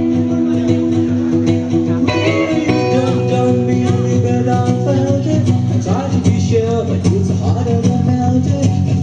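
A man singing into a microphone over guitar-led music played through a PA system. The music holds one chord for the first couple of seconds and then changes. The wavering sung melody stands out more clearly in the second half.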